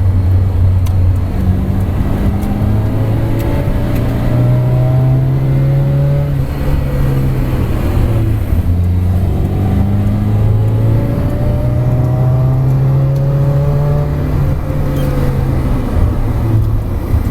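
VFTS-spec Lada inline-four engine running during break-in. The revs rise slowly and hold, drop back about halfway through, then rise and hold again before easing off near the end.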